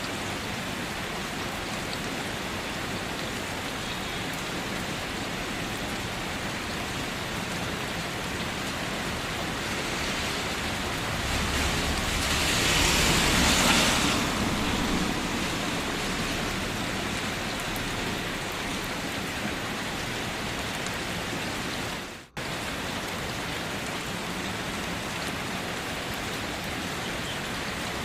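Steady rain on a surface, swelling louder for a few seconds midway, with a sudden momentary dropout about two-thirds through.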